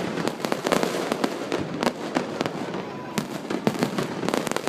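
Aerial fireworks going off in rapid succession: a dense run of bangs and crackling pops.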